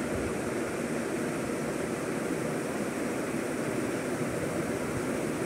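Steady background hiss and rumble at a constant level, with no distinct events.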